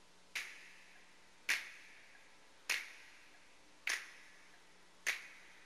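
Finger snaps keeping a slow, steady beat: five crisp snaps about 1.2 seconds apart, counting in a song.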